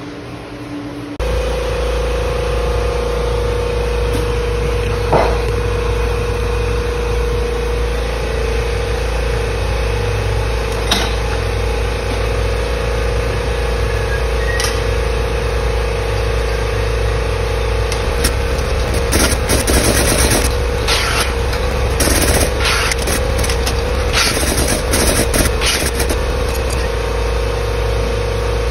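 Electric hydraulic pump of a tube bender running with a steady hum, while steel tube is bent into a seat hoop. A run of metallic clanks and rattles comes in the second half as the tube and bender dies are worked.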